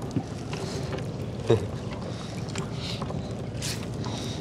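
Small fishing boat on the river while a net is hauled in: a steady low hum with one sharp knock about a second and a half in.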